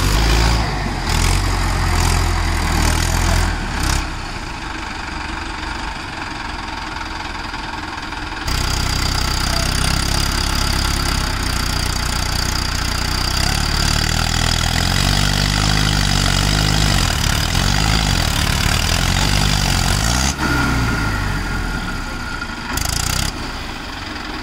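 Diesel tractor engines (Swaraj 744 and Mahindra 555) running, working in the mud. About eight seconds in a heavier, louder engine note sets in, and its speed rises and falls several times before easing off.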